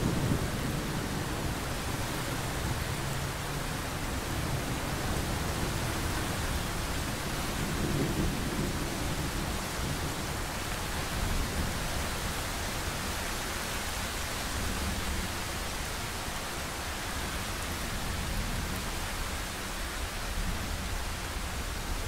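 Steady rain with a low thunder rumble dying away in the first second, and a fainter rumble of thunder again about eight seconds in.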